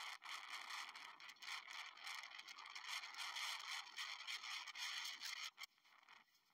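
Road noise from a golf-cart taxi on the move: a steady, gritty scraping and rattling with many small clicks, which drops away abruptly about five and a half seconds in.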